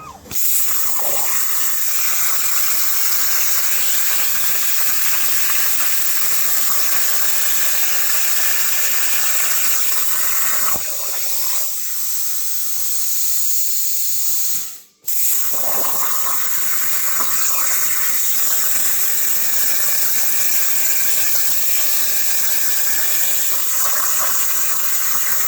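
Plasma cutter torch cutting 3/16-inch steel plate: a loud, steady hiss. It cuts off sharply about 15 seconds in and starts again straight away, as the arc stops and restarts on the next cut.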